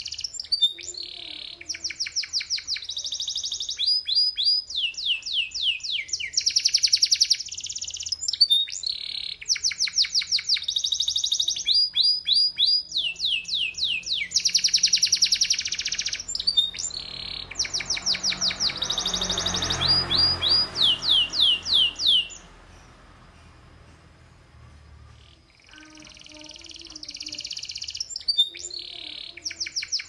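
Domestic canary singing long, fast phrases of high rapid trills and rolled, repeated notes. It stops for about three seconds late on, then starts singing again. A soft rushing noise swells in the background just before the pause.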